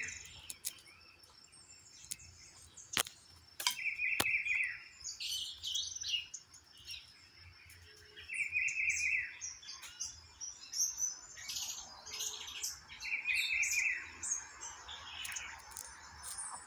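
Wild birds chirping, with one short buzzy trill repeating about every four to five seconds. A few sharp taps about three to four seconds in come from the guan pecking food off the concrete wall.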